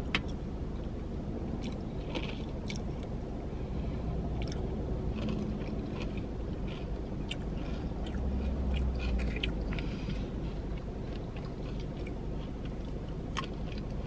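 Chewing, with small clicks and scrapes of a plastic spoon in a cup of food, over a low steady hum inside a car.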